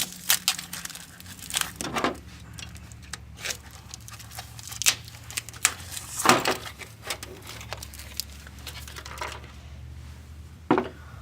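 Plastic wrapping and styrofoam packing being pulled off and handled: irregular crinkling and rustling with scattered sharp crackles.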